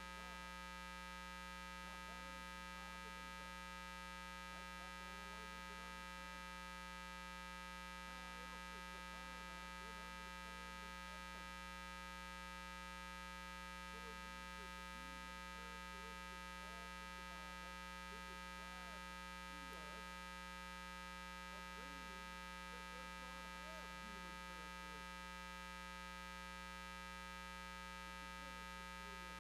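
Steady electrical hum made of many fixed tones, with faint wavering sounds coming and going underneath.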